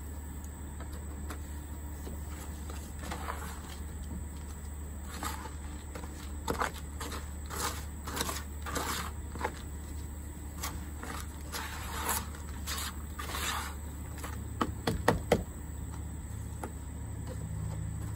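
Hands working with plastic compost buckets and soil: scattered scrapes, rustles and light knocks, with a few sharp clicks, the loudest sounds, about fifteen seconds in, over a steady low hum.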